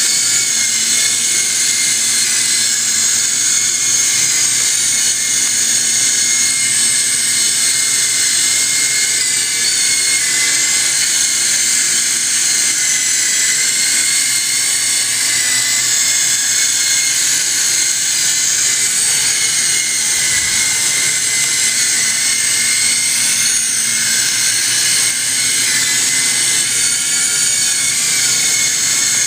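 S032G mini RC helicopter in flight indoors: its small electric motors and rotors give a steady high-pitched whine that wavers a little in pitch as the throttle changes.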